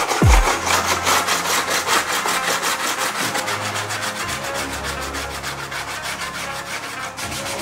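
Hand sanding the inside edge of a plastic truck grille with a sanding pad: a quick, even run of rubbing strokes, about five a second.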